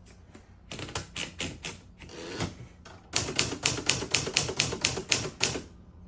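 Typewriter keys striking the platen as a test line is typed: a few separate keystrokes, then a fast, even run of about five or six keystrokes a second lasting some two and a half seconds.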